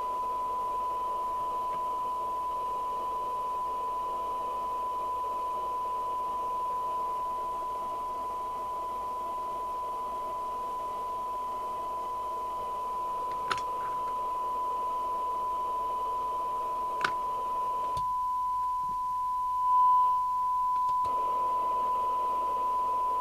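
Steady 1 kHz test tone demodulated by an FM CB receiver from a signal generator, with receiver hiss behind it, as the set's IF is peaked for sensitivity against a SINAD meter. Two sharp clicks come about halfway through, and the hiss drops away for about three seconds near the end while the tone carries on.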